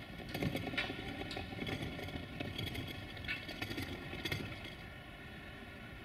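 A machine running steadily with a hum made of several stacked tones, over a low rumble, with scattered short clicks and knocks.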